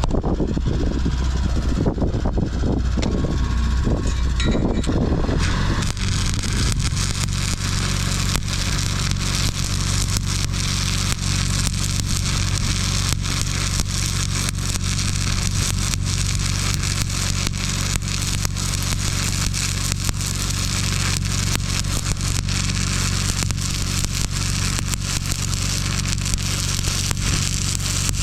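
Stick-welding arc crackling steadily, struck about six seconds in, over the welder's steady low hum; before that, low handling rumbles and knocks.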